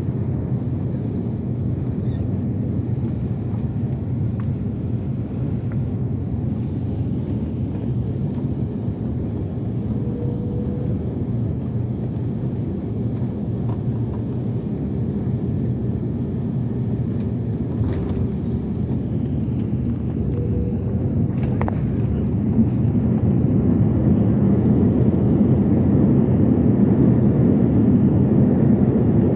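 Steady low rumble of an Airbus A330's engines and airframe heard inside the passenger cabin, growing louder about two-thirds of the way through, with a couple of faint clicks.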